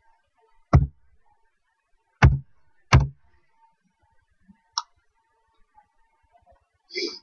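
Computer keyboard keystrokes: three loud, sharp key taps in the first three seconds, then a lighter click near the five-second mark and a short softer sound near the end.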